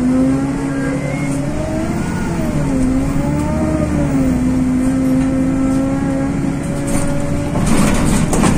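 Tezeller TezAuto LF1200 city bus heard from inside the cabin while under way: the engine and drivetrain run with a pitched whine that rises and dips over the first few seconds, then holds steady. A burst of hiss comes near the end.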